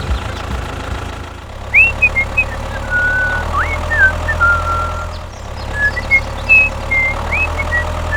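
Small tractor engine running steadily with a low hum, while short high chirping whistles come and go over it.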